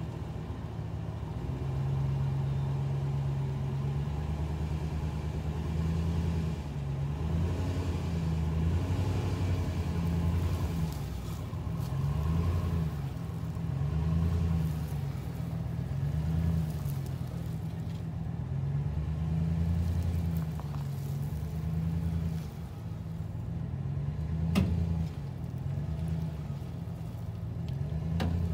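Engine of the vehicle towing a car, running at low revs with its pitch rising and falling as it pulls the car along. One sharp knock near the end.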